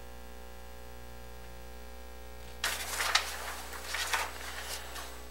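Paper sheets rustling as agenda pages are handled and turned, in two short spells about two and a half and four seconds in, over a steady low hum.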